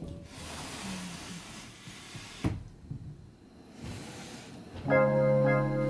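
A soft rushing hiss for about two seconds ending in a single sharp knock, then quieter; near the end, background music comes in loud with a held organ-like keyboard chord.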